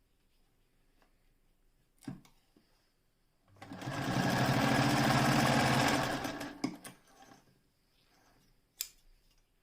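Singer 99K electric sewing machine running for about three seconds, speeding up quickly and then stopping, with a sharp click shortly before it starts and another near the end.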